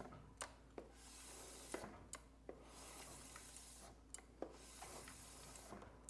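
Faint rubbing whir of a 2022 Suzuki DRZ400SM front wheel spun by hand, brought to a stop by its freshly fitted wave rotor and EBC brake pads a few times, with light clicks in between. This is a quick stop test of the new front brake, which works.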